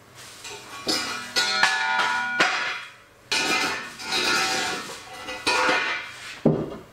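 Knocks, clatter and scraping as a heavy black walnut slab tabletop is shifted into place on a welded steel base, with the steel ringing briefly after some knocks and a sharp knock near the end.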